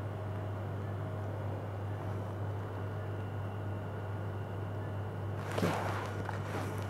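Steady low hum of room tone, with a brief close rustle of a lab-coat sleeve brushing past the microphone about five and a half seconds in.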